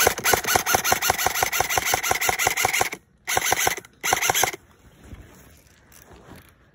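Airsoft gun firing on full auto: a fast, even run of shots lasting about three seconds, then two short bursts.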